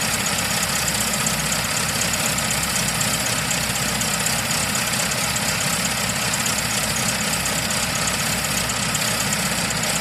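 Car engine idling steadily at an even, unchanging level.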